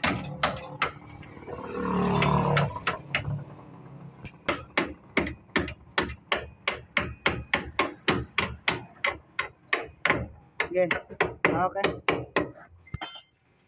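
Repeated hammer blows in a steady run of about three strikes a second, with a louder noisy swell about two seconds in.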